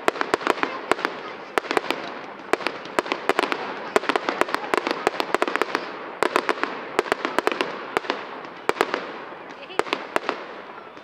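Aerial fireworks display: a rapid, irregular string of sharp bangs and cracks from shells bursting, several a second in clusters with brief lulls, over a steady background hiss.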